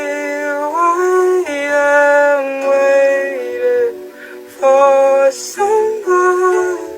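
A dog howling in long, drawn-out notes that step up and down in pitch, almost like singing, with a couple of short breaks for breath.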